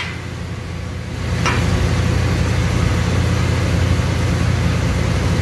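An engine idling with a steady low hum that grows a little louder about a second in. A single short click comes about a second and a half in.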